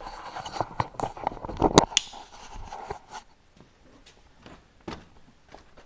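Handling noise of cut plywood pieces being picked up and moved: rustling and scraping with a quick series of knocks, the loudest a sharp knock nearly two seconds in. After about three seconds only a few light taps and clicks.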